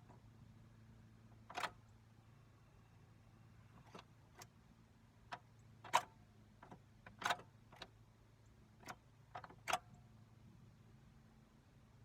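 A faint, steady low electrical hum from a truck with the key turned on, broken by about ten sharp, irregular clicks and ticks. The truck is one that will not crank or start.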